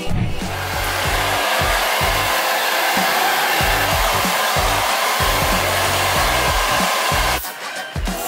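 Handheld hair dryer blowing steadily, then cutting off abruptly about seven seconds in.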